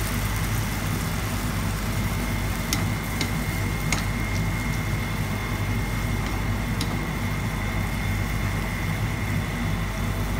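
Steady mechanical hum over a pan of chicken and carrots simmering in broth, with a few faint clicks.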